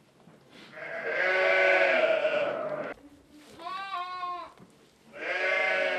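Sheep bleating in a barn: three bleats, two long loud ones with a shorter, higher, wavering one between them.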